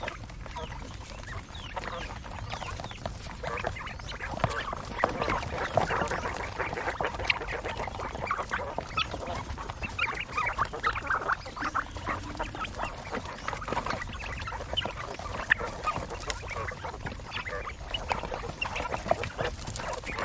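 A flock of quail calling and chattering, with many short, overlapping chirps throughout and a steady low rumble underneath.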